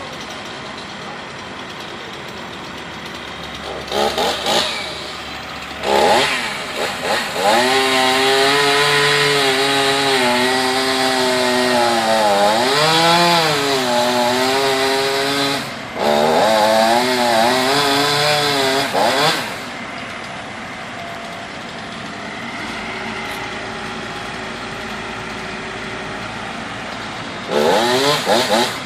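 Chainsaw idling, then revved in short bursts and held at full throttle for about twelve seconds, its pitch sagging and recovering as the chain bites into the wood, with a brief let-off partway. It drops back to a lower steady run and is revved again near the end.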